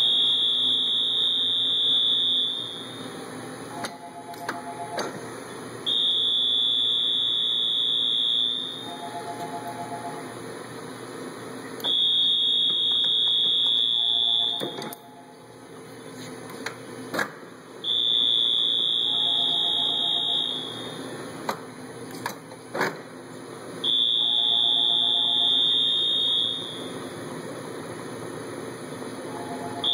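Electronic alarm beeper sounding in a repeating cycle: a long, high, steady beep of a couple of seconds every six seconds, five times, with a shorter, lower two-tone beep between each. A few sharp knocks fall in between.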